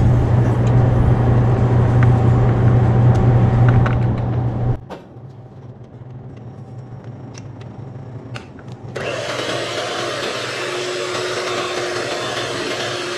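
Electric hand mixer running, its beaters whisking cake batter in a stainless steel bowl. It cuts off suddenly about five seconds in, a few light clicks follow, and it starts again about four seconds later.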